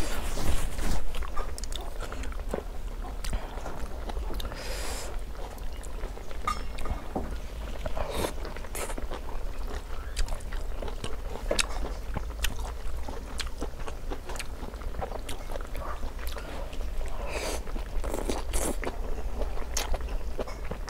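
A person chewing food, with short clicks of chopsticks against a plate and now and then a brief breathy smear, such as blowing on hot food.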